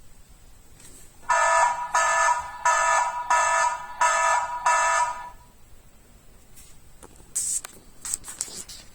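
Electronic home alarm sounding: six harsh buzzing beeps, each about two-thirds of a second long and evenly spaced, then it stops. A few faint clicks follow near the end.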